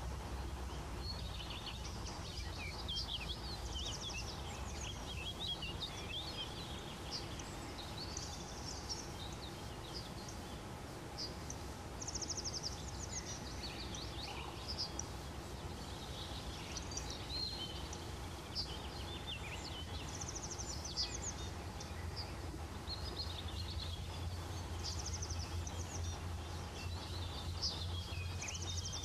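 Woodland songbirds singing and calling in a chorus of scattered chirps and short trills, over a steady low background hum that strengthens near the end.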